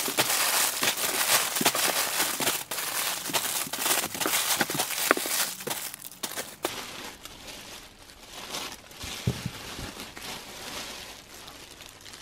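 Plastic wrappers of bagged squishy toys crinkling and rustling as hands dig through a cardboard box, with many small crackles. It is loud and dense for the first six seconds or so, then quieter.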